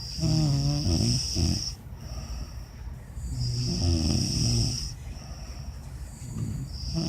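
Heavy snoring: two long snores about three seconds apart, each lasting about a second and a half, with a third beginning near the end. A high, thin, steady whine comes and goes alongside.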